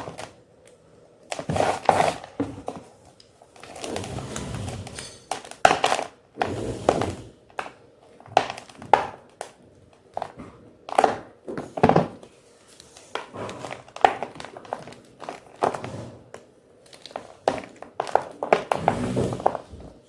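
White gym chalk being crunched and crushed in short, irregular bursts with sharp cracks, one every second or two with brief pauses between.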